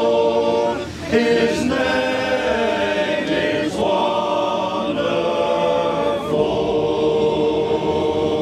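A choir singing a Christmas carol unaccompanied, in long held phrases with a short break between phrases about every two and a half seconds.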